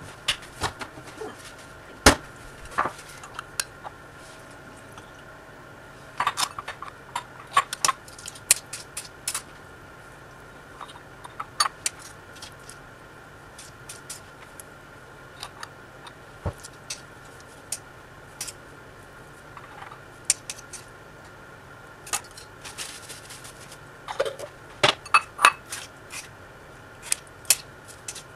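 Scattered clinks and taps of a knife against a glass jar and a metal baking tray as artichoke hearts are picked out and laid on tortilla pizzas, coming in clusters. A faint steady hum runs underneath.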